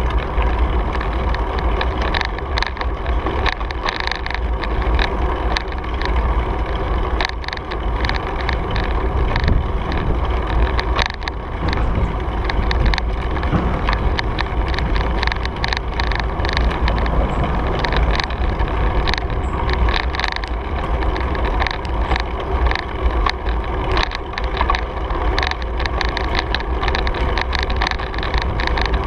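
Riding noise from a moving bicycle: wind rumbling steadily on the microphone and tyres rolling on a gravel trail, with frequent short clicks and rattles from bumps.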